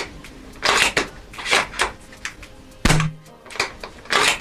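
ARES Amoeba Striker AS-01 spring-powered bolt-action airsoft sniper rifle being worked: a run of short clacks as the bolt is lifted, drawn back, pushed forward and locked down with a short throw. About three seconds in, one louder snap with a brief low hum marks the spring piston being released on a shot.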